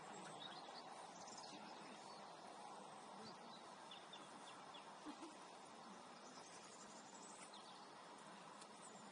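Near silence: faint steady background noise over the pitch, with a few faint short high chirps.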